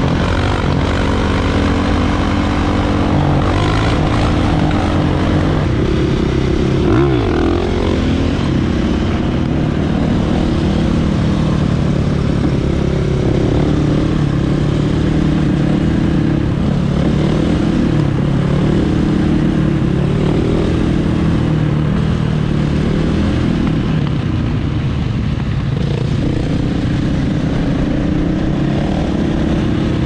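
Dirt bike engines running at road speed during wheelies, the throttle rising and falling so the engine note shifts up and down.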